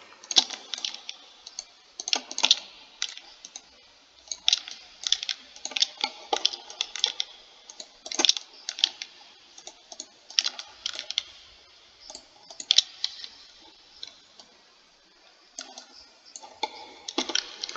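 Computer mouse buttons and keyboard keys clicking irregularly, several quick clicks at a time, with a short quiet spell about two-thirds of the way through.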